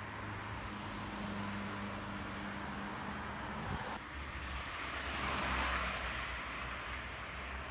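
Street traffic: a steady wash of road noise with a low engine hum. About five seconds in, a car passing close swells and then fades.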